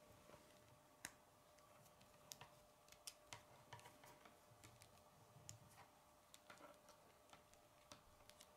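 Faint, irregular clicks and ticks of plastic K'nex parts being handled and fitted by hand, over a faint steady hum.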